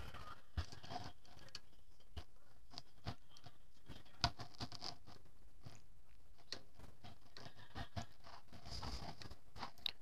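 Small irregular clicks, taps and scratches of hands threading CPU-cooler standoffs through a motherboard into a plastic backing plate, with a sharper click about half a second in and another just past four seconds.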